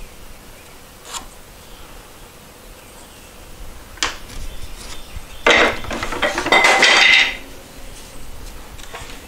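A poplar board being shifted and slid against the metal table and fence of a miter saw. There is a sharp knock about four seconds in, then nearly two seconds of loud scraping and clattering.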